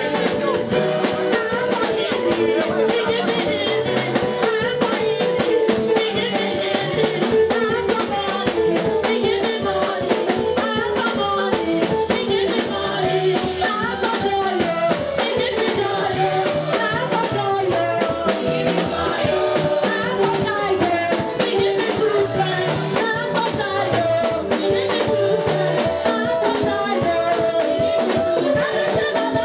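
Church worship music: singing over drums and percussion with a steady beat.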